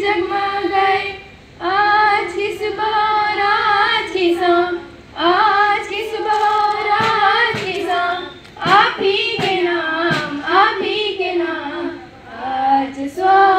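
A group of schoolgirls singing a Hindi welcome song together into a microphone, without instruments, in long held phrases with short breaths between them.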